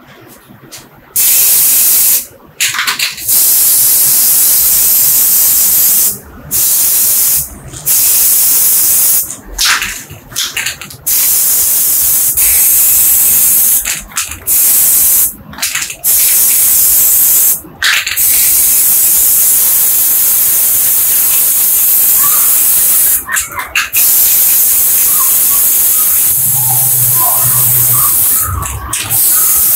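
Paint being sprayed onto small metal parts: a loud hiss in repeated bursts of one to several seconds with short breaks between them, longer and steadier passes in the second half.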